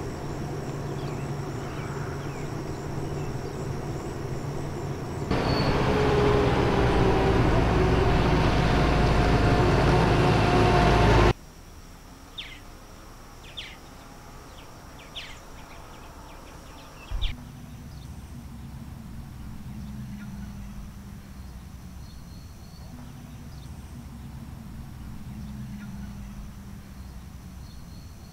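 Outdoor field ambience from several cut-together shots. Steady high insect drone and a low rumble, then about five seconds in a loud stretch of a motor vehicle running close by with tyre noise, which cuts off abruptly. After that, quiet rural ambience with a few short bird chirps, a single thump, and the insect drone.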